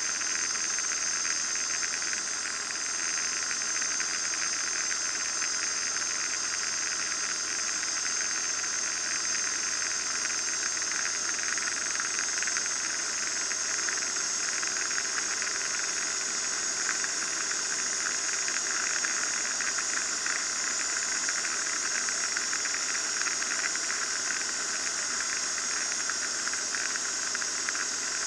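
Steady, hiss-like cabin noise of a Van's RV-9A light aircraft in cruise flight: engine, propeller and airflow heard inside the cockpit as one unbroken rush.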